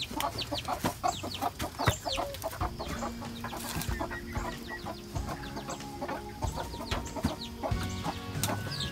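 Young chickens cheeping, many short high calls that fall in pitch, over quiet background music that comes in about a third of the way through.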